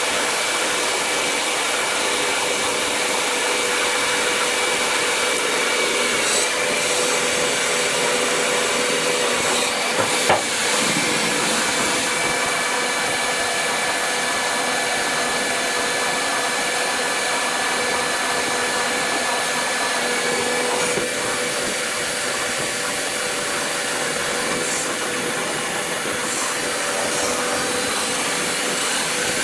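Steady whirring drone of a John Deere 8R 410 tractor heard from inside its cab, engine and cab fan running at working speed. A single short click comes about ten seconds in, and the tone shifts slightly about two-thirds of the way through.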